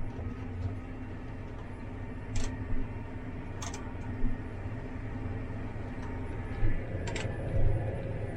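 Steady drone of a 2009 tractor's engine heard inside the cab, with three sharp clicks of the cab's light switch being flipped on and off.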